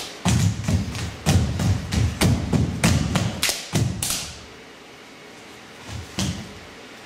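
Barefoot dancers stamping and landing on a stage floor: a quick run of heavy thuds, about three a second, that stops a little after four seconds in, then one more thud near the end.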